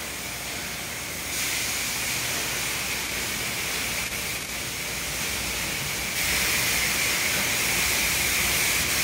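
Steady hiss of high-pressure water spray from a car wash attendant's hand-held prep wand and the tunnel's equipment. It steps louder about a second in and again about six seconds in, as the wand is turned on the front of the car.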